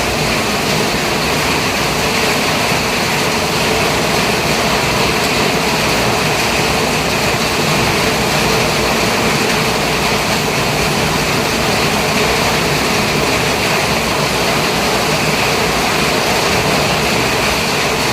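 Steady vehicle engine and road noise, an even rumble and hiss that holds unchanged throughout.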